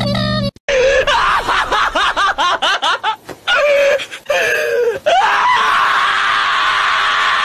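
A loud scream-like wail. First it warbles quickly up and down in short breaks, then from about five seconds in it becomes one long held scream.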